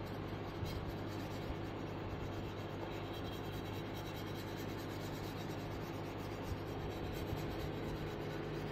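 Scratchy rubbing as a fat-bike frame tube is rubbed down by hand, over a steady low hum.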